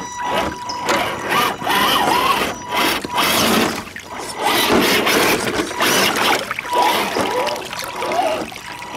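Axial SCX10 II RC crawler's electric motor and drivetrain whining, the pitch rising and falling with the throttle as it climbs rocks in a stream, with water splashing and trickling and scattered knocks.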